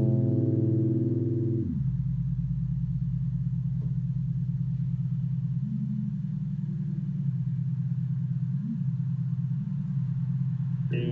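Low, steady synthesizer drone holding one note, its higher overtones falling away about two seconds in, with a few faint, brief higher notes over it.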